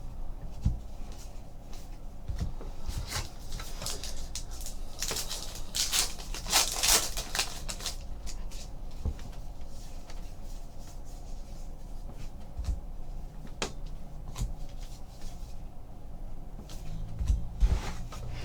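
Trading cards and their packaging being handled on a table: scattered light clicks and taps, a louder crinkling rustle about five to eight seconds in, and a few low knocks near the end.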